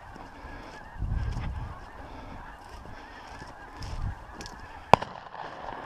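A flock of wild geese honking, their calls overlapping continuously. There are brief low rumbles about a second in and around four seconds, and a single sharp click near the end.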